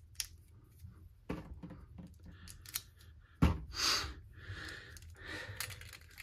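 Small plastic clicks and clatter of Beyblade Burst spinning-top parts being taken apart and fitted together by hand, with a louder plastic clack about three and a half seconds in.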